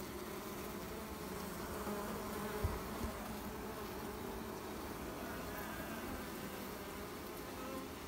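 Honeybees buzzing steadily on an open hive frame held close, with one brief low bump about two and a half seconds in.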